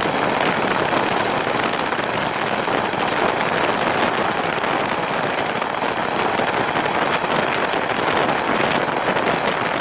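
CH-47D Chinook tandem-rotor helicopter running, heard from a camera on top of the fuselage: a steady, dense rush of rotor and engine noise with wind on the microphone and a faint thin high whine.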